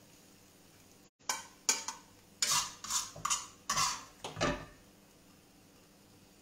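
A serving utensil scraping and clinking against a frying pan as sauced spaghetti is lifted out and onto a plate. There are about seven or eight short scrapes and clatters, starting just after a second in and stopping at about four and a half seconds.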